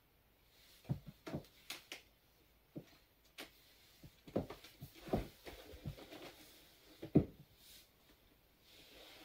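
A scatter of light taps and knocks from stiletto heels on a wooden floor and a wooden chair as someone sits down on it, the loudest knock about seven seconds in.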